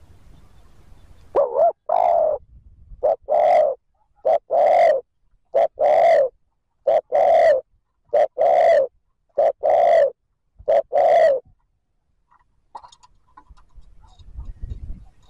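Spotted dove cooing in a fast run of eight two-part coos, each a short note followed by a longer one, about one phrase every second and a bit; the calls stop a few seconds before the end.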